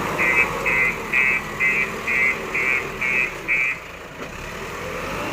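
JCB 3DX backhoe loader's reversing alarm beeping about twice a second over its running diesel engine. The beeping stops a little before four seconds in, and the engine then builds up again.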